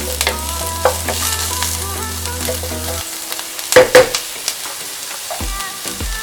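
Onions and cauliflower frying in a pot, sizzling as they are stirred, with a loud clank of the spoon against the pot about four seconds in.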